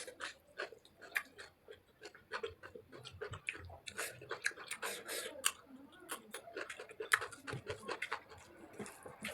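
Close-up eating sounds: chewing and lip smacks of someone eating chicken curry, an irregular run of quick wet clicks several times a second.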